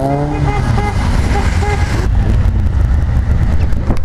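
A Ford Escort's engine revving hard as the car pulls away: the note climbs, levels off and fades within about two seconds. Underneath, another car's engine rumbles steadily close by.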